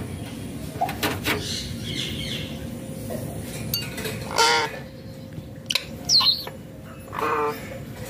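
Indian ringneck parakeet giving short calls: one about halfway, another a moment later, and a third near the end. A few sharp clicks and knocks come in the first second or so.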